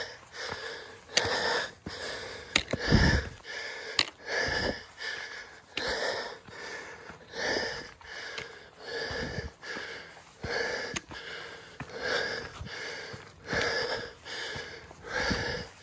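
A hiker breathing hard close to the microphone while climbing a steep trail, in quick, even breaths in and out, under a second apart, with a few sharp clicks in between.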